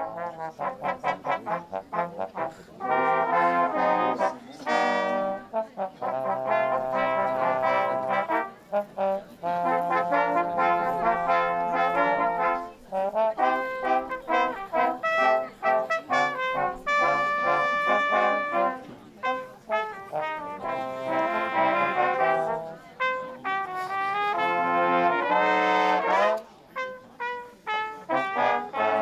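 Amateur brass ensemble of trumpets, tenor horns and trombone playing a piece together. It opens with quick repeated short notes, then moves into held chords in phrases broken by brief pauses.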